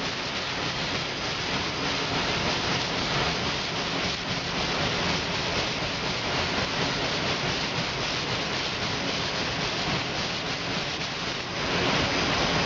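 Power sander running steadily against a car fender's panel, a continuous rushing noise as the finish is sanded down toward bare metal; it grows louder near the end.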